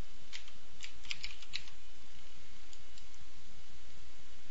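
Computer keyboard keys being typed: a quick run of about seven keystrokes in the first second and a half, then a couple of fainter taps, over a steady low hum.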